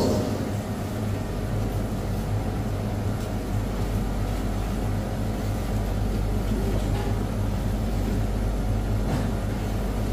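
Steady low mechanical hum of commercial kitchen machinery, with a few faint knocks.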